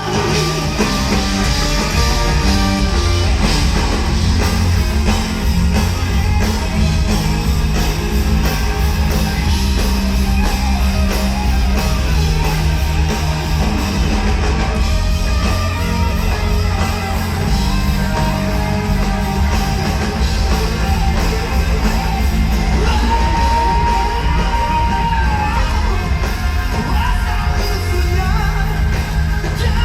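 Live rock band playing loud, amplified music with drums, bass-heavy guitars and a singer. A note is held for a couple of seconds near the end.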